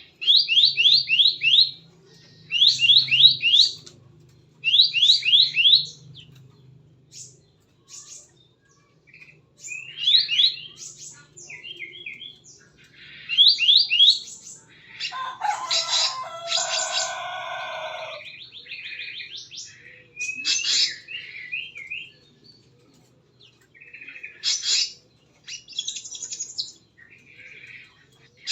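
Bird calls: repeated short series of four or five quick rising chirps, then scattered single notes, with a harsher, fuller squawk-like call in the middle. A faint steady low hum runs underneath.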